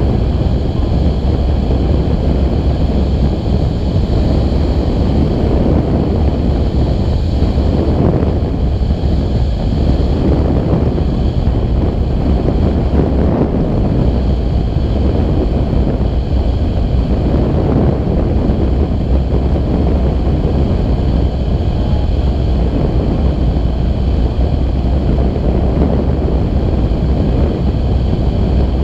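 Steady rushing wind buffeting the wing-mounted camera's microphone on a tandem hang glider in flight. A faint steady high whine sits under it.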